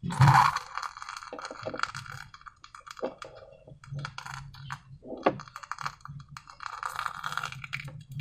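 Slime being squeezed and stretched by hand, giving sticky, irregular crackling clicks and squishes. There is a louder burst just after the start.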